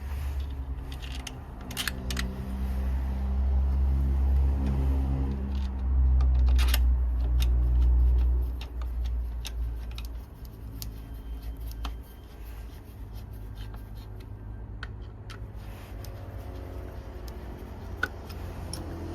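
A low engine-like drone with a steady hum that builds, holds loudest for about five seconds, then drops away about eight seconds in, with scattered sharp clicks throughout.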